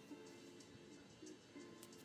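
Quiet background music: soft held notes over light ticking percussion.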